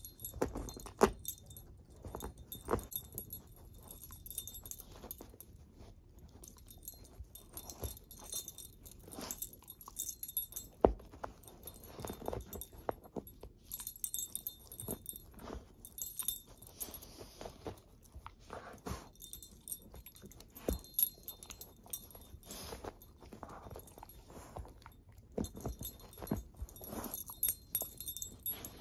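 Dog chewing and tearing at a fabric stuffed toy, with the metal tags on her collar jingling in irregular clinks as she gnaws and shakes it.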